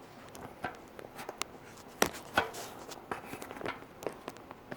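Handling noise: scattered light clicks and knocks as things are moved and set in place, with two sharper knocks close together about two seconds in.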